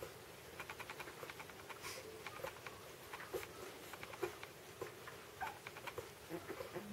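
Border Collie puppies suckling at their mother's teats: irregular runs of quick, faint, wet smacking and clicking sounds, with a few small squeaks.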